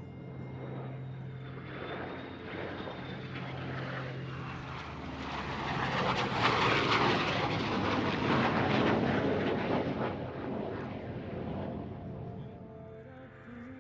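F-22 Raptor's twin jet engines as it flies past: the noise builds, is loudest about six to ten seconds in, then fades away.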